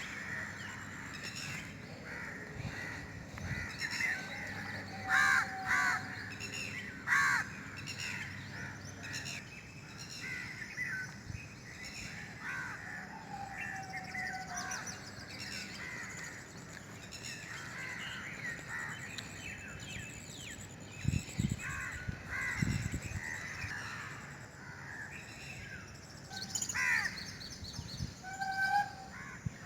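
Morning birdsong: many birds calling and chirping at once, short repeated calls overlapping throughout. A couple of low thumps come a little past two-thirds of the way through.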